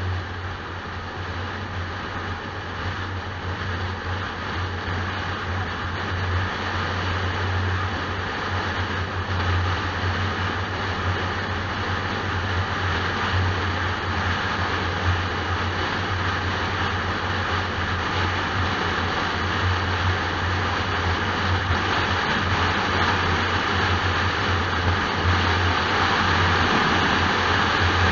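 A car's engine and tyre noise at motorway speed, heard from inside the car: a steady low hum with road roar over it, slowly getting louder.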